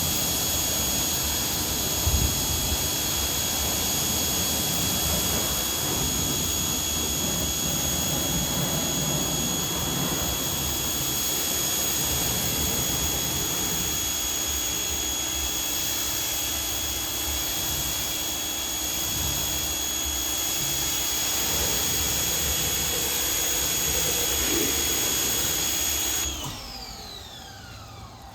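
Active 2.0 electric pressure washer running while its 40-degree nozzle sprays rinse water over a car: a steady hiss of spray with a high motor whine. Near the end it cuts off suddenly and the whine falls away as the motor spins down.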